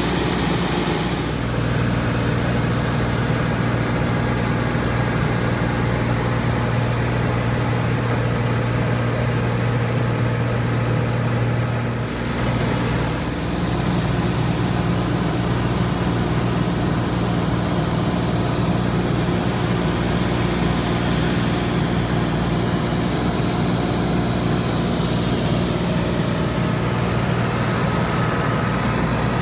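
Cessna 182's piston engine and propeller droning steadily in cruise flight, heard from inside the cabin, with a brief dip and a slight change in tone about twelve seconds in.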